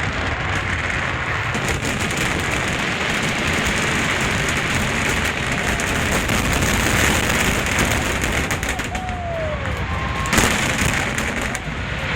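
Fireworks finale: a dense, continuous crackle of many shells bursting at once, like heavy rain, over a steady low rumble of booms, with one sharp bang about ten seconds in.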